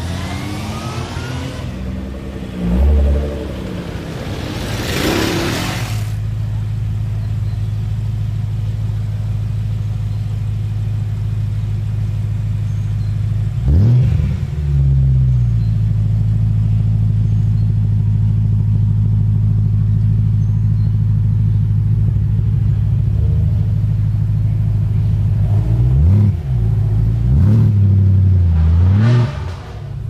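A performance car engine idling steadily and revved in short blips: once about three seconds in, again near the middle, and several times in quick succession near the end. A brief rushing noise comes a few seconds in.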